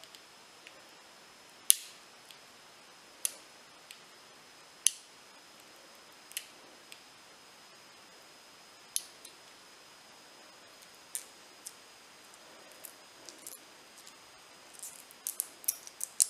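A knife cutting open the shrink-wrap on a charging cable: sharp plastic clicks and crackles, one every second or two, coming quicker near the end.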